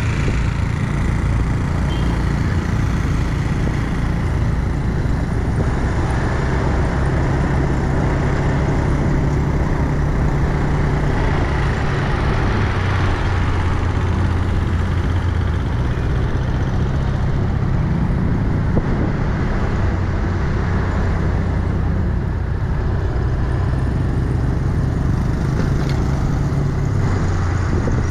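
Motorcycle engine running while riding in street traffic, its low note shifting a little with speed, over steady road and traffic noise.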